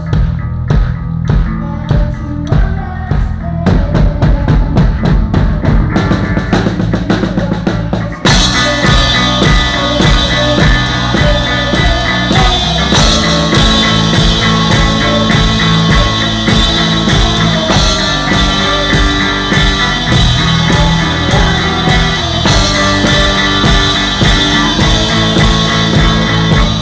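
Live rock band playing, with the drum kit close and loudest: a steady beat of drum hits over low bass notes, then about eight seconds in the full band comes in hard with crashing Zildjian cymbals.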